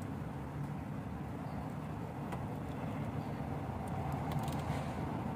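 Steady low rumble of city traffic, with a few faint clicks about four and a half seconds in.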